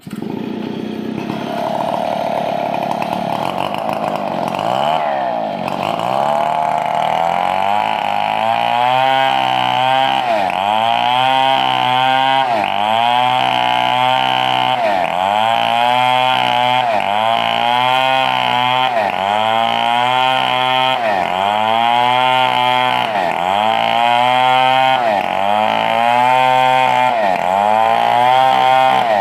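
Chainsaw cutting a 4-metre coconut log, starting suddenly at full speed. After several seconds the engine settles into a regular rhythm, its pitch dipping under load and recovering about once every second and a bit.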